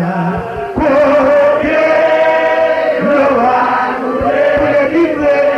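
Voices chanting a worship song, holding long drawn-out notes. The singing swells about a second in.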